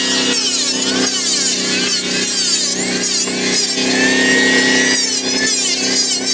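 Modern M2920 electric hand planer running at speed and shaving along a wooden beam: a steady motor hum with the rasp of the blade cutting the timber.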